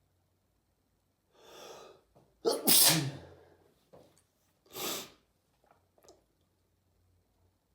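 A person sneezing: a drawn-in breath, then one loud sudden sneeze about two and a half seconds in, and a quieter breathy burst about two seconds later.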